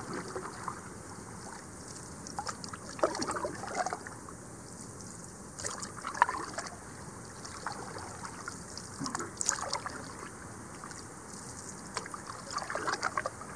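Canoe paddle strokes in calm lake water: a splash and trickle of drips about every three seconds as the blade dips and lifts.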